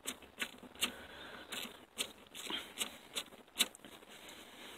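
Faint, irregular metallic clicks and light scraping from a ratchet, extension and universal-joint socket setup spinning a 12 mm mounting nut off a clutch master cylinder under a truck's dash.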